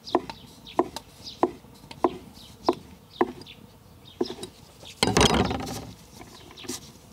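Knife slicing a rolled sheet of homemade egg-noodle dough into thin strips: seven short, steady chops in the first four seconds. About five seconds in comes a louder scraping noise lasting about a second.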